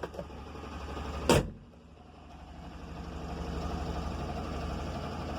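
Bajaj Qute's single-cylinder engine idling, with one sharp thump of a door being shut about a second in.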